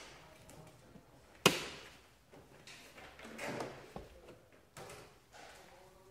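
Plastic dashboard trim strip of a Renault Scenic 3 being pried off with a plastic wedge tool: one loud snap about a second and a half in as a metal retaining clip pops out of its hole, then quieter clicks and creaks of the plastic.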